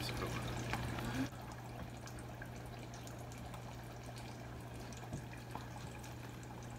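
Battered tilapia strips deep-frying in hot oil in a FryDaddy electric deep fryer: a steady crackling sizzle, louder for about the first second and then settling to an even level.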